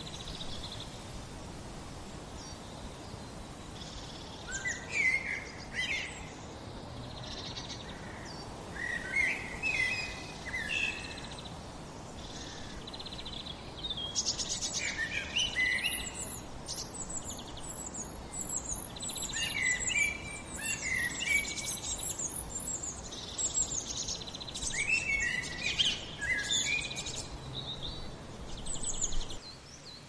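Several small songbirds singing: short warbled phrases repeated every few seconds, and a very high, thin, rapid trill through the middle, over a steady low rush of background noise.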